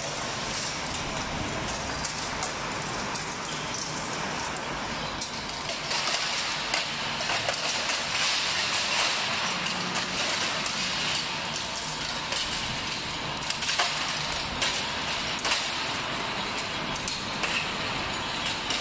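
Shredded car-body sheet metal clattering continuously as it pours off the end of a conveyor onto a scrap pile, with many sharp metallic clinks, over a low steady hum from the running shredder line.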